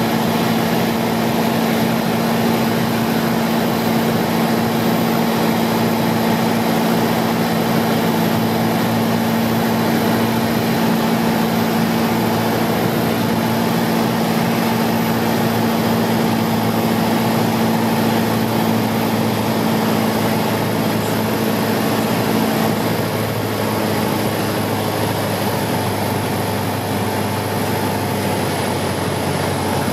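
Light propeller aircraft's engine and propeller droning steadily, heard inside the cabin on a landing approach. About three-quarters of the way through, the engine note shifts and the level eases slightly.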